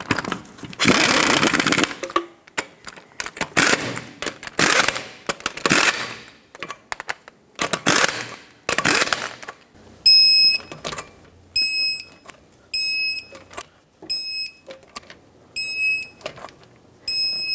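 A 1/2-inch pneumatic impact gun runs lug nuts down in three short bursts. Then a torque wrench clicks, and a short, high electronic beep sounds about once a second, six or seven times, as each lug nut is torqued to 150 foot-pounds.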